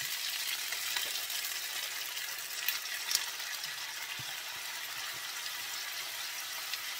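Boiled chicken feet frying in a pan with garlic, onion and chili in olive oil: a steady sizzle, with two sharp clicks about three seconds in.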